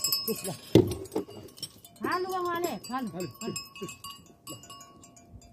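Metal livestock bells clinking and ringing on and off, mixed with short pitched calls, the strongest a rising-then-falling call about two seconds in.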